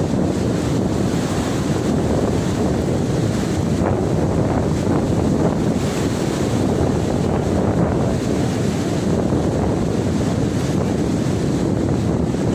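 Violent wind gusts buffeting a tent, with heavy wind rumble on the microphone: a loud, steady roar of noise.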